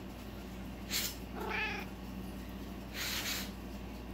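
A domestic cat gives one short meow about a second and a half in, just after a puff of breath is blown at it; a second puff of breath comes about three seconds in. The meow is the cat's reaction to being blown on.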